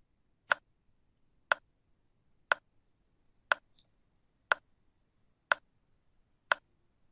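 Countdown timer sound effect ticking once a second, seven sharp ticks with silence between.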